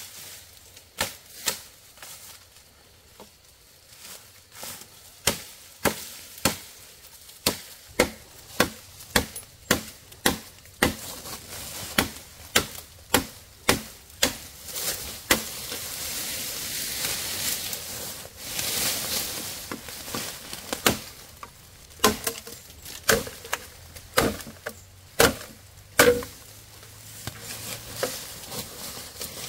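Repeated sharp chopping strikes, about one or two a second, with a stretch of steady hiss for a few seconds midway before the strikes start again.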